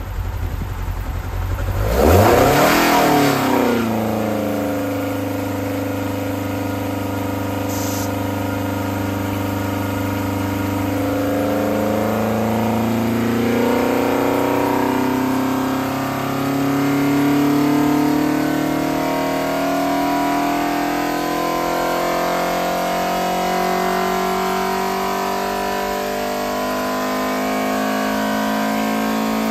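Ford Pinto 2.1-litre four-cylinder race engine, with twin Weber 48 carburettors and a Simpson exhaust manifold, running on an engine dyno. There is a sharp rise and fall in revs about two seconds in, then the engine holds steady under load before climbing slowly through a power run, passing 6,500 rpm near the end.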